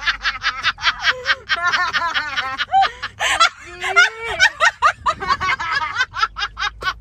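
A person laughing in a fast, high-pitched run of short "ha" pulses, about seven a second, with a short breathy break about three seconds in.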